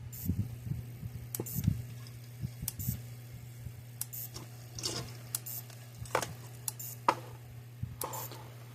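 Patriot PMX120 electric fence energizer firing on a smaller replacement discharge capacitor: a sharp snap about every 1.3 seconds over a steady low hum, with other light clicks in between.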